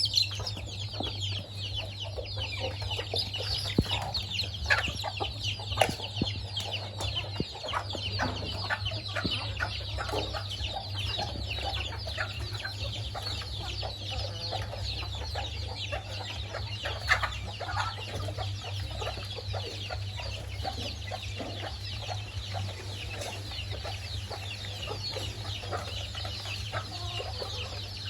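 A family of chickens feeding, with clucking and a constant stream of short, high-pitched peeps and chirps. A steady low hum runs underneath.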